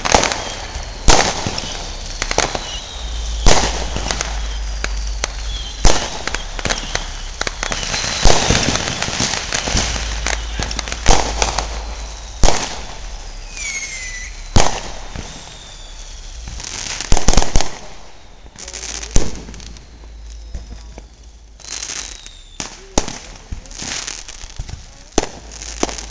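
Consumer fireworks going off all around: an irregular, continuous barrage of loud bangs and smaller firecracker pops, some close and some far off, with a few thin whistles gliding down in pitch.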